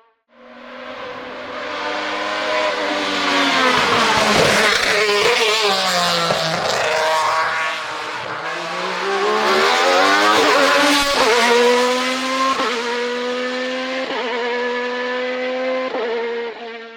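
A hillclimb racing car's engine at high revs, building up over the first two seconds. Its pitch dips and climbs again twice, about four and ten seconds in, then holds steady before stopping abruptly near the end.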